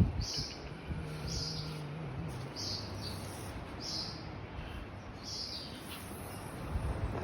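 A bird repeating a short, high call about once a second, over a low rumble of wind or water.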